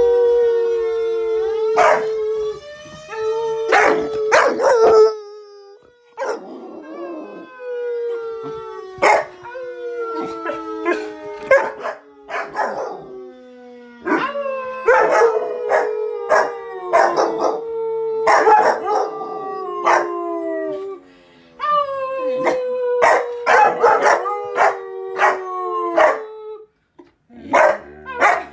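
A Doberman puppy and a Bouvier des Flandres puppy howling, often two voices at once, in long drawn-out howls one after another. Short sharp barks break in between the howls.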